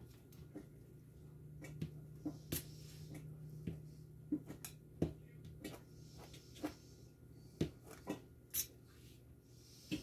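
Kitchen knife cutting cooked turkey meat on a cutting board: irregular knocks of the blade meeting the board, a dozen or so spread unevenly through the stretch.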